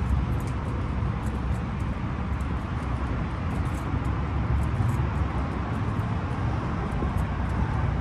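Wind buffeting the microphone, a steady low rumble that rises and falls, with faint light ticks over it.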